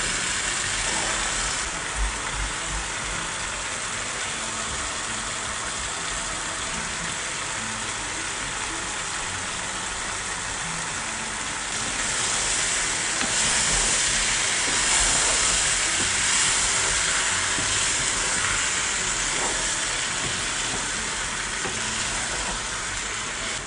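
Eggplant and taro pieces frying in oil in a pot: a steady sizzling hiss, with a wooden spatula stirring through them. The sizzle grows louder about halfway through.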